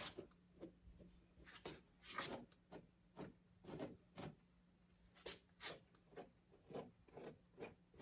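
Faint, quick brushing strokes through a dog's coat, about two or three scratchy strokes a second in an uneven rhythm.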